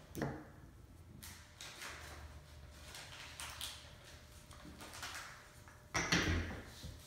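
Light knocks and scrapes of small wooden toy-kit pieces being handled on a plastic table, with a louder knock about six seconds in as the assembled wooden loader toy is set down on the tabletop.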